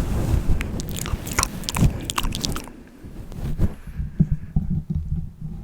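Close-miked mouth clicks and smacks: a quick run of sharp wet clicks in the first half, then fewer and softer ones over a low rumble.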